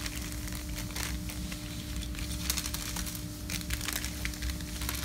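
Light, irregular plastic rustling and crinkling as plastic model-kit parts are handled, over a steady low hum.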